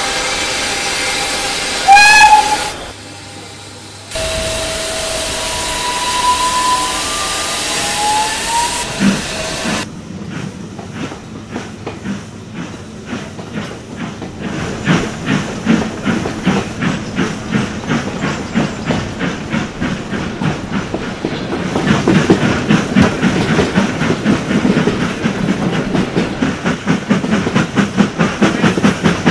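Steam locomotive hissing at a standstill, with a short rising whistle blast about two seconds in and more whistle notes over the hiss shortly after. From about ten seconds in the locomotive starts away, its chuffs quickening and growing louder through the last third.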